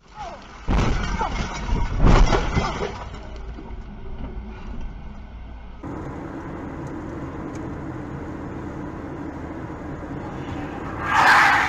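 Steady road and engine noise heard from inside a car on a highway (dashcam audio). Near the end comes a loud sudden burst, the sound of a car colliding with the side of a lorry. A few loud sudden sounds come in the first three seconds.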